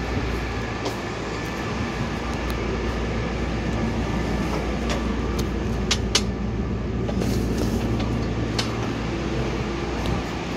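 Steady hum inside a Kobe Municipal Subway 6000-series car standing stopped, its onboard equipment running, with a few sharp clicks around the middle.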